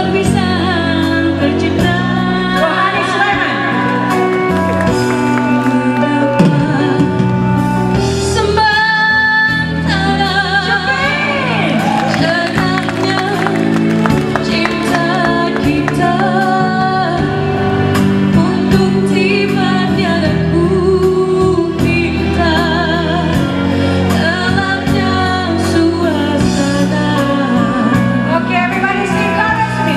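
Two women singing a Malay pop song live over a backing track, amplified through stage speakers, the voices carrying vibrato on held notes.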